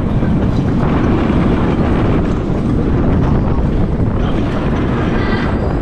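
Intamin spinning roller coaster car running along its track: a loud, steady rumble and rattle of the wheels, with wind buffeting the microphone.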